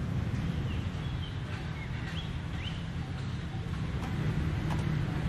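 Outdoor ambience: a steady low rumble with a few short, high bird chirps about one to three seconds in.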